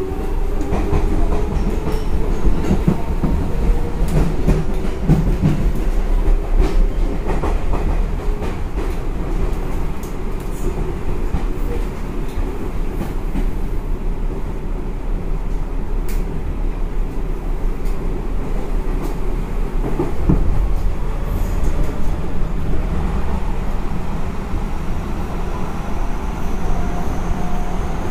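Seibu 6000 series electric train heard from inside while running at speed: steady wheel-on-rail rumble with occasional clicks from rail joints. A faint tone rises in pitch near the end.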